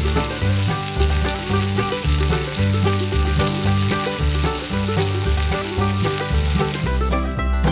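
A batter-coated dough ball on a skewer deep-frying in a small pot of hot oil: a steady, dense sizzle that stops near the end.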